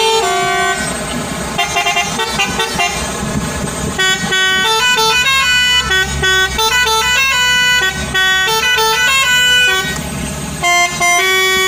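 Truck telolet horn, a multi-trumpet musical air horn, playing a tune. It holds long notes at the start and end, with a quick run of short stepped notes through the middle, over a low rumble.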